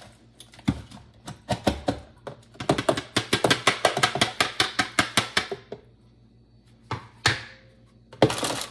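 NutriBullet blender cup of ground dry dog food being knocked and tapped over a plastic tub to shake the food out: a run of sharp knocks quickening to about four or five a second, then stopping. One or two single knocks and a short rustle follow near the end.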